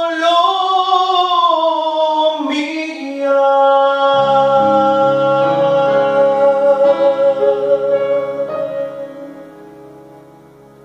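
Man's voice holding the song's last note with vibrato over keyboard accompaniment for about two and a half seconds, then closing chords on the keyboard that hold and fade away.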